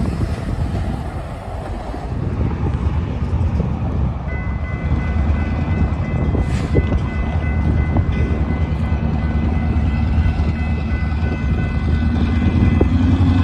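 Diesel locomotive engine rumbling as it passes close hauling hopper cars, then running lower and steadier further off while it switches cars. From about four seconds in, a steady high whine runs alongside it.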